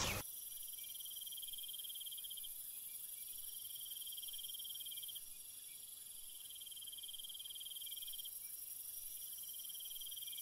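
Crickets chirping in long pulsing trills that start and stop every few seconds, over a steady high hiss.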